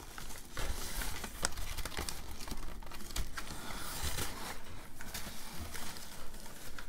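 White packing paper crinkling and rustling as it is pulled open by hand to unwrap a plant.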